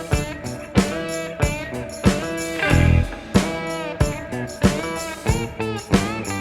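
Background music: guitar-led instrumental with notes struck on a steady beat and bending pitches.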